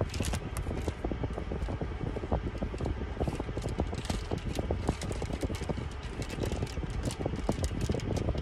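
Air from a car's air-conditioner vent blowing straight onto the microphone, a steady low rumble of wind noise. Many quick clicks and crackles sound over it as a dog is fed treats from a plastic bag.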